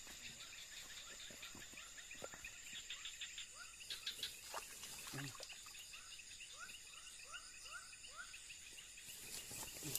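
Night insects, crickets among them, keep up a steady high-pitched drone. Over it runs a series of short rising chirps, about two a second, in the second half, with a few faint knocks and rustles.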